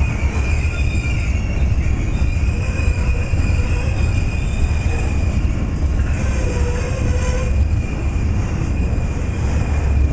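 BNSF diesel locomotive leading an intermodal freight train as it approaches: a steady heavy rumble with a thin, high squeal held over it.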